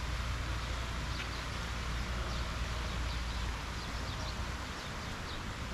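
Small birds chirping over a steady outdoor hiss and low rumble.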